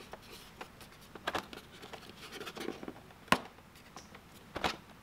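Cardboard packaging being handled: a window-box tray rubbing and scraping inside its cardboard sleeve as it is worked loose, with a few sharp taps, the loudest a little past halfway and another about a second later.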